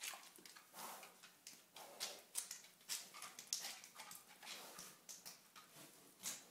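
Potbellied pig making short, irregular grunts and sniffs, about two a second, while rooting through a box of balls.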